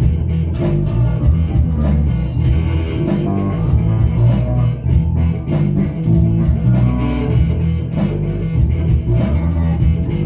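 Electric guitar and bass guitar playing rock together, loud and continuous, the bass notes heavy underneath.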